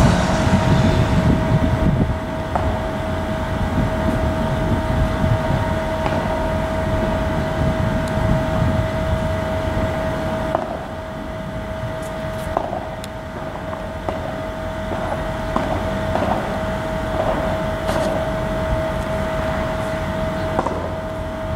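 A locomotive-hauled train of double-deck passenger coaches running past on the track: a steady low rumble of wheels on rail, heaviest in the first couple of seconds, with a steady hum held throughout and a few sharp clicks in the second half.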